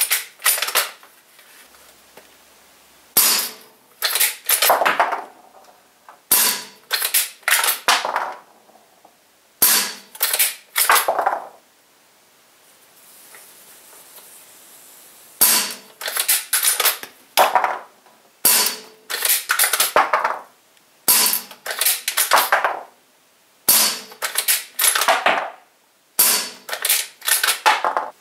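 Umarex Legends Cowboy Rifle, a CO2-powered lever-action BB rifle, fired about eight times, a few seconds apart. Each shot comes in a cluster of sharp clacks from the under-lever being worked, which ejects the empty cartridge and chambers the next.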